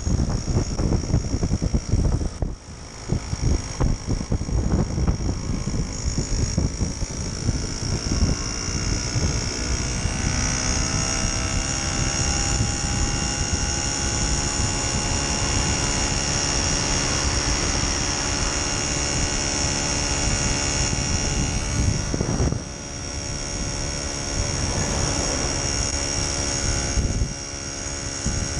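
1969 Solex 3800 moped's 49.9 cc two-stroke engine buzzing steadily at cruising speed, with wind buffeting the microphone during the first several seconds. The engine's pitch climbs a little about ten seconds in, and the level dips briefly twice near the end.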